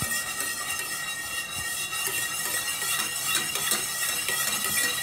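Wire whisk stirring a thin milk-and-flour white sauce in a steel pot, with light clinks and scraping of the wires against the pot as the flour lumps are whisked smooth.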